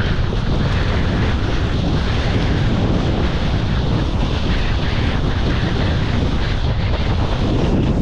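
Strong wind buffeting the microphone of a kitesurfer's point-of-view camera, a steady heavy rumble over the rush and splash of water under the board.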